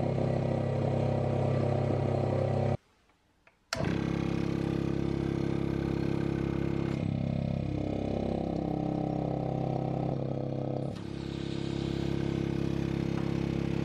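Electric vacuum pump running with a steady hum. The sound cuts out for about a second around three seconds in, and its pitch sags and wavers for a few seconds in the second half before settling back to the same hum.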